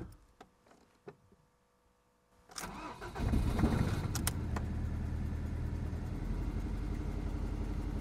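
Ford Mondeo Mk3's 1.8 petrol four-cylinder engine turning over and catching about two and a half seconds in, then idling steadily. It doesn't sound too good: the engine has a misfire and the check engine light is on.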